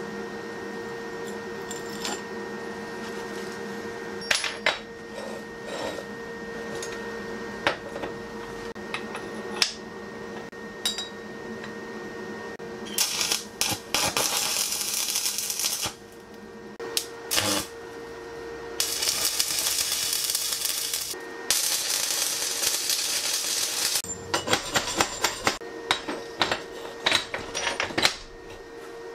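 A chipping hammer tapping slag off steel welds, then three stretches of arc-welding crackle, the middle and last about two seconds each. A quick run of taps follows near the end as fresh slag is knocked off, all over a steady background hum.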